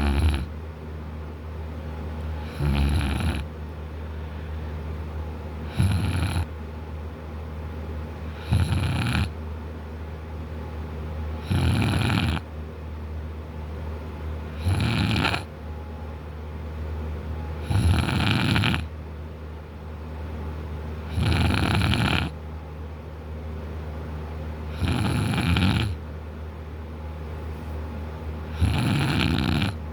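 A man snoring in deep sleep: a loud snore roughly every three seconds, each lasting under a second, about ten in all.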